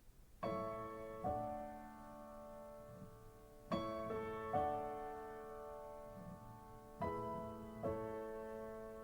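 Piano introduction of a pop ballad played back through Yamaha NS-1000M loudspeakers driven by a Nakamichi IS-2 amplifier. Sustained piano chords come in about half a second in, struck in pairs roughly every three seconds, each ringing and slowly fading.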